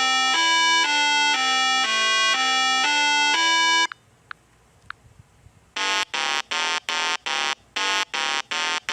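A short electronic tune of quick stepped notes for about four seconds. After a pause, a harsh electronic buzzer sounds in about ten short pulses.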